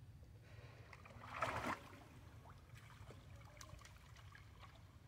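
Shallow pool water lapping and dripping as macaques wade and climb out onto the stone edge, with one brief louder splash about a second and a half in and a few small drips and clicks after it.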